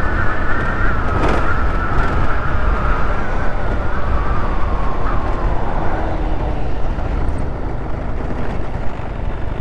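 GY6 single-cylinder four-stroke scooter running on the road with heavy wind rumble on the microphone, and a whine that slowly drops in pitch over the first half as the scooter eases off.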